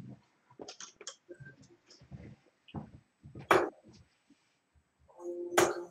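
Darts striking a bristle dartboard: two sharp thuds about two seconds apart, with fainter clicks and knocks around them.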